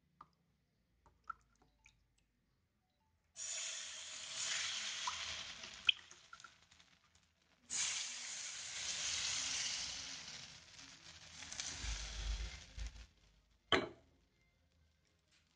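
Thin crepe batter sizzling in a hot nonstick frying pan over a gas flame. The sizzle comes in two stretches, about three and five seconds long, with a short break between them. A single sharp clack follows near the end.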